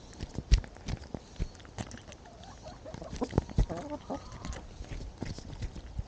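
Chickens clucking close up, with many sharp taps of beaks pecking right at the microphone. The loudest tap comes about half a second in, and a run of clucks comes a little past the middle.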